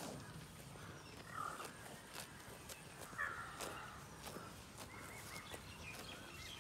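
Indian cow grazing, tearing grass in short crisp rips about once or twice a second, irregularly, with birds calling in the background.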